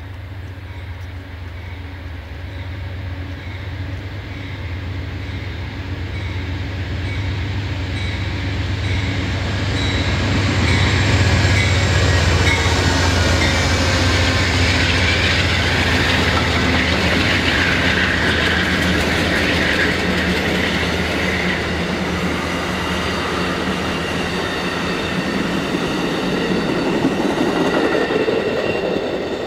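An Amtrak GE P42DC diesel locomotive approaches and passes at speed. Its engine hum builds and peaks about halfway through, then the passenger cars' steel wheels keep up a steady rolling noise on the rails, with faint high-pitched wheel squeal.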